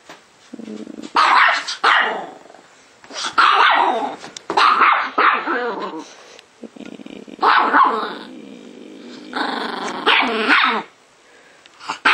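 Chihuahua play-growling and yapping in about five bouts: a low rumbling growl with sharp high barks breaking through it.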